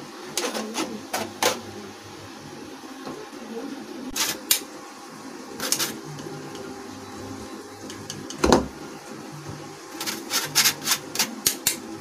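Steel spoon scraping and clicking against a stainless-steel mesh sieve as gram flour is worked through it: scattered groups of quick metallic clicks, one louder knock past the middle, and a fast run of clicks near the end.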